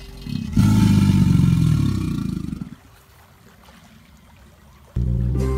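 An alligator giving a low, rumbling growl that lasts about two seconds, then a quiet pause. Music starts near the end.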